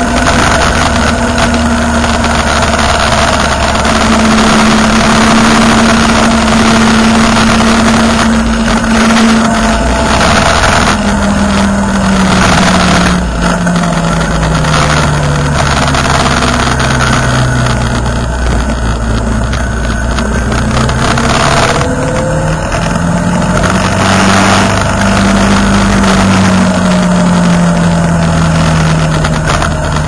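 Motorcycle engine running at road speed with wind rushing over the microphone. The engine note falls as the bike slows through the middle, then climbs again as it picks up speed.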